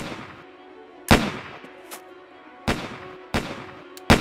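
Gunfire in a shootout: about six shots, one every second or less, each trailing off in an echo. A low held note of background music runs beneath the shots.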